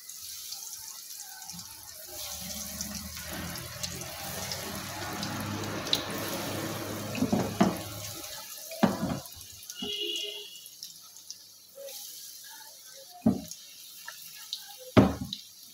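Breaded chicken nuggets sizzling in hot oil in a frying pan, a dense frying hiss that thins out after about eight seconds. A few sharp knocks in the second half, the loudest near the end, as more nuggets go into the pan.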